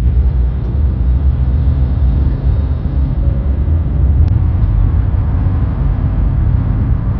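Steady low rumble of road and engine noise inside a moving car's cabin, with a couple of faint ticks.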